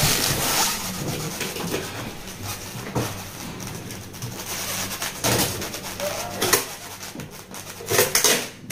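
Handling noises as a new front-load washing machine is unpacked: scattered knocks and rustles, with the loudest cluster near the end.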